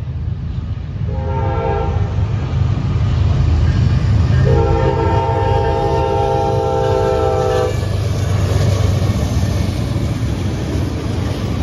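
Norfolk Southern freight locomotive's multi-chime air horn sounding for a grade crossing. A short blast comes about a second in, then a long blast of about three seconds, which fits the closing short-and-long of the crossing signal. Under the horn the heavy rumble of the fast-moving train builds as it reaches the crossing.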